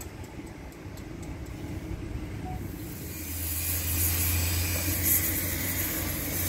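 Faint low rumble, then from about three seconds in a steady low engine hum with a hiss above it, from an idling concrete mixer truck.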